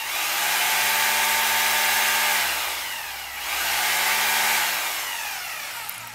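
Corded electric hammer drill running free with no load, its motor whining at speed. About two and a half seconds in it slows briefly and then speeds back up, and it winds down near the end.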